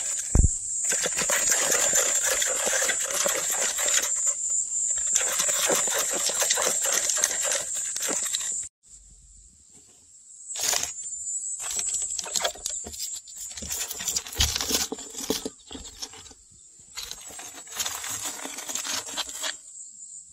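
A mole's claws scratching and scrabbling on a plastic tub and through loose soil as it digs, a dense run of quick scratches. The sound drops away suddenly about nine seconds in, then returns in shorter, uneven spells of scratching and crumbling soil.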